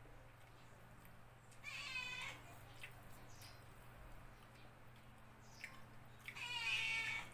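A house cat meowing twice, once about a second and a half in and again near the end, the second meow a little longer.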